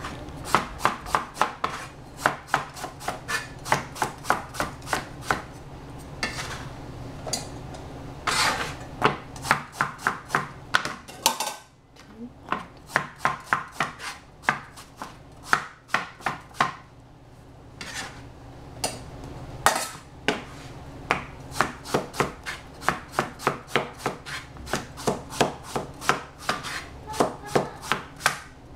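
Chinese cleaver slicing eggplant on a plastic cutting board: runs of quick, even chops, about three a second, broken by a couple of short pauses.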